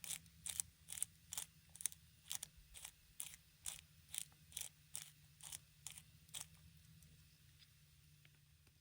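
Black pepper being ground from a pepper grinder, a regular crunching grind about two or three times a second that stops about six and a half seconds in.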